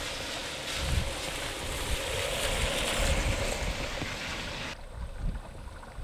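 Jet airliner (an Airbus A320neo) on a wet runway in rain: a steady hiss of engine and spray that swells a little in the middle, with wind gusting on the microphone. The hiss cuts off abruptly about three-quarters of the way through, leaving low wind rumble and a faint, steady high tone.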